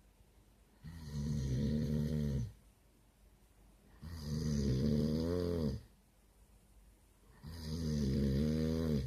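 A man asleep after drinking beer, snoring loudly like a V8: three long, deep snores about three seconds apart, with quiet breaths between.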